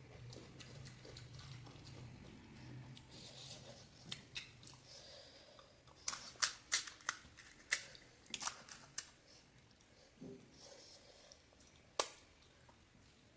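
Crisp panipuri puris crunching and being handled: a quick run of sharp cracks and clicks about six to nine seconds in, and one more sharp crack near the end.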